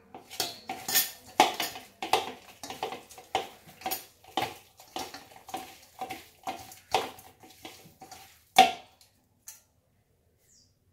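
Hand mixing chicken pieces with masala in a stainless steel bowl. Repeated squelching strokes, about two a second, each sets the steel bowl ringing briefly, and a last loud knock comes near the end before the mixing stops.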